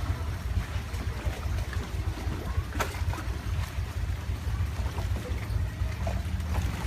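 Motorboat engine running with a steady low rumble, mixed with the rush of water and wind.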